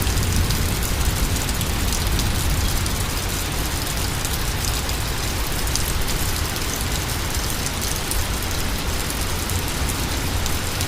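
Steady rain falling, with many small drops spattering and a low rumble of wind on the microphone.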